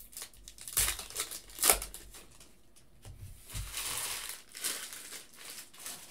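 Foil trading-card pack wrapper being torn open and crumpled, with sharp crinkling crackles about a second in, then a longer stretch of crinkling about halfway through.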